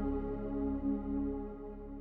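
Ambient background music with sustained synthesizer chords, fading out.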